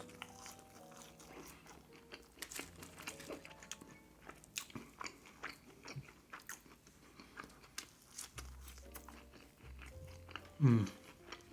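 Close-miked chewing of crispy breaded fries: a run of short, irregular crunches and mouth sounds, with faint background music underneath.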